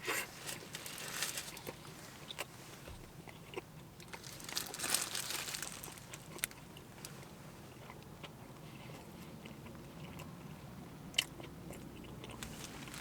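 Crunchy biting and chewing of fast food in short spells, with a few sharp clicks between them.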